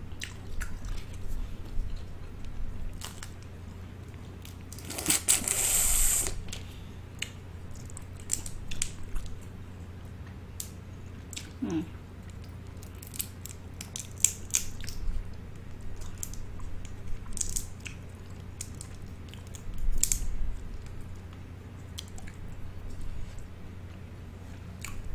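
Close-miked eating of seafood-boil food: scattered bites, smacks and wet chewing clicks, with a longer louder noisy stretch about five seconds in. A steady low hum runs underneath.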